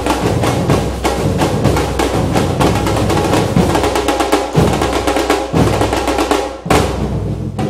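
Background music driven by fast drums and percussion, with a steady bass underneath; it thins out near the end.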